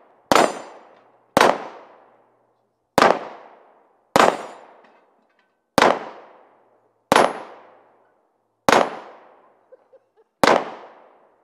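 Eight pistol shots fired one at a time, roughly one to one and a half seconds apart, each a sharp crack with a short echoing tail.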